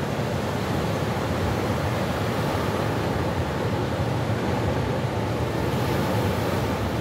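Ocean surf breaking and washing over a sandy, rocky shore: a steady rushing noise without pause.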